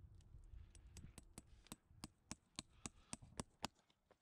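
Farrier's hammer driving a horseshoe nail through the shoe into a horse's hoof: about ten quick, sharp strikes, roughly three a second, growing louder and stopping shortly before the end.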